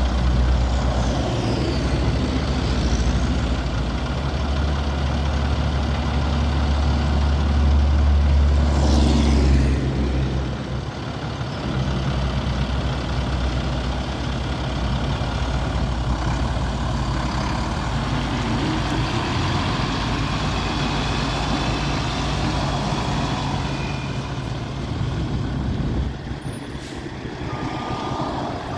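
Heavy truck engine idling steadily, with a brief hiss about nine seconds in. Repeated high-pitched beeps come in near the end.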